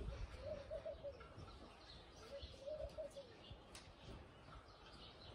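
A dove cooing twice, each a short phrase of soft coos, with faint chirping of small birds.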